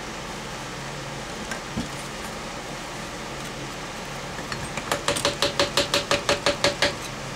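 A quick run of about a dozen sharp, evenly spaced metallic clicks, some six a second, from hand work on the drain auger's motor, over a steady low hum. A single soft knock comes a couple of seconds earlier.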